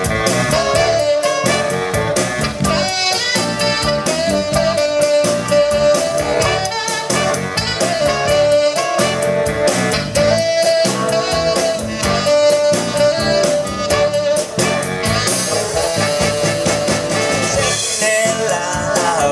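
Live blues band playing an instrumental passage: a horn section led by tenor saxophone holds long notes over drums, electric guitar and electric bass, with a louder cymbal wash near the end.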